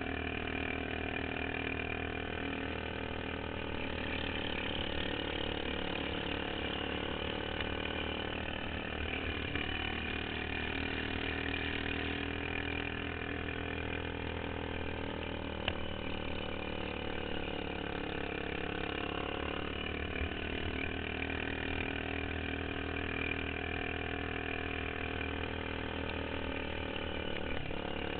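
Modified racing lawn mower engine running hard, its pitch rising and falling as it speeds up and slows. There is one sharp click about halfway through.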